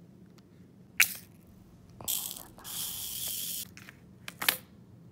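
Small plastic bead jars clicking and knocking in a clear plastic diamond-painting storage case. A sharp click comes about a second in, a rustling hiss lasts about a second and a half from two seconds in, and more clicks follow near the end.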